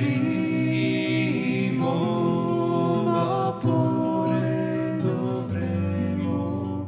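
A slow song: a singing voice holding long, bending notes.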